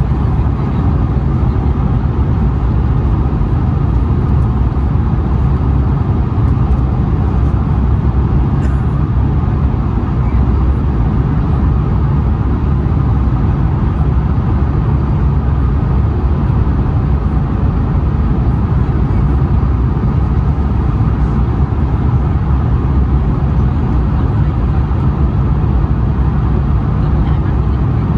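Steady cabin noise inside an Airbus A220-100 descending on approach: the low rumble of its Pratt & Whitney PW1500G geared turbofans and the rush of airflow, heard from a window seat.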